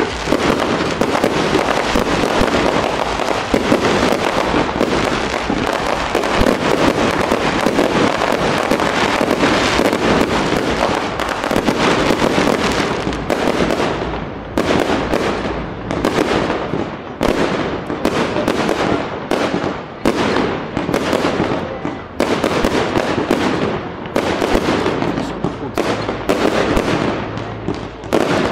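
Fireworks going off: a dense, continuous barrage of bangs and crackling for roughly the first dozen seconds, then a quick run of separate bangs, a few a second.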